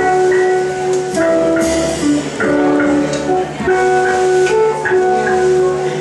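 A small jazz band playing an instrumental tune live, with guitar prominent and a melody of held notes, each lasting about half a second to a second, over the band.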